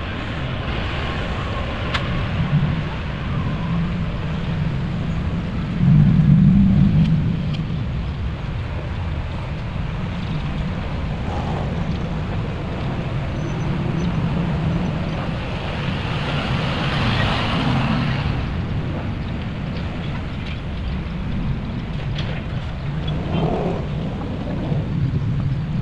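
Heavy diesel trucks and site machinery running with a steady low rumble, swelling louder about six seconds in. A hissing rush comes about two-thirds of the way through.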